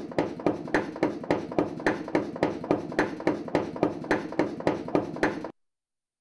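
Sampled metal strikes from a blacksmith's forge recording, sequenced on a Novation Circuit groovebox into a steady, even beat of about four hits a second, each with a short ring. The beat cuts off abruptly about five and a half seconds in, and a brief burst follows near the end.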